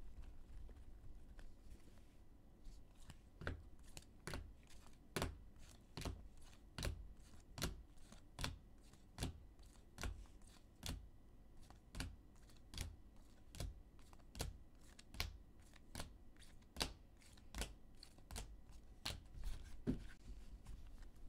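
Trading cards in rigid plastic toploader holders clacking against one another as they are moved one at a time from a stack. A sharp click comes about every 0.8 s from a few seconds in, after some faint shuffling.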